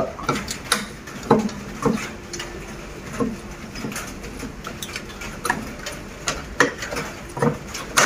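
Irregular small clicks, taps and scrapes of a screwdriver on screws and the plastic housing of an air conditioner's indoor unit as its cover is being taken off.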